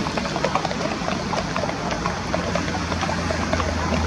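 A motor's steady low hum, growing louder near the end, over outdoor noise scattered with many small ticks and splashes.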